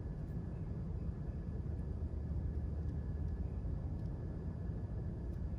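Room tone: a steady low rumble with a faint, thin high tone above it.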